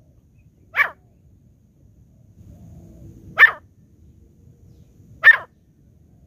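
Caged francolin (teetar) giving three short, sharp calls, a couple of seconds apart, used as a decoy to lure wild birds into the trap.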